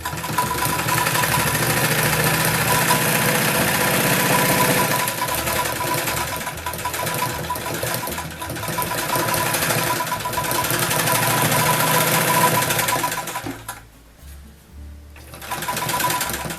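Singer Model 66 sewing machine stitching a seam through denim, running steadily at a fast rapid beat. It stops near the end, then runs again briefly.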